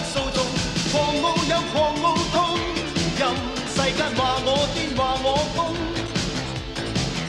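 Background music: a Cantonese pop-rock song with a steady beat and a wavering melody line.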